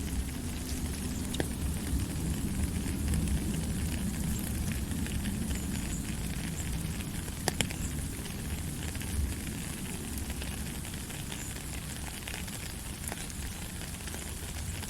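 Steady rain falling: an even hiss with a low rumble underneath and scattered sharp drop ticks, the sharpest about seven and a half seconds in.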